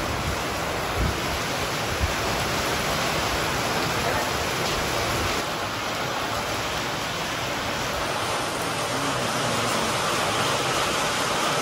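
Steady monsoon rain falling and splashing on a wet stone-paved courtyard: an even, unbroken hiss.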